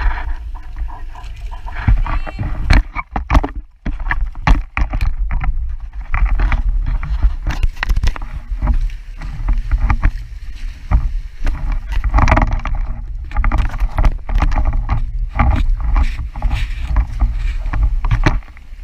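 A sailboat under way on open water. Water splashes and slaps against the hull in irregular bursts over a steady low rumble.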